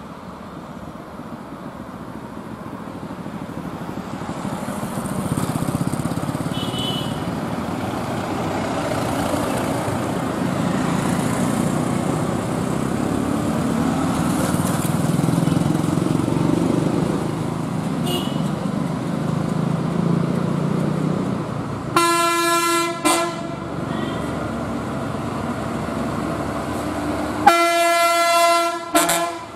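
Engines of road vehicles on a hairpin bend, a jeep passing and a Tamil Nadu government bus coming up the climb; the rumble builds over the first few seconds and then holds steady. A loud horn, most likely the bus's, sounds twice: about a second long two-thirds of the way through, and about a second and a half near the end.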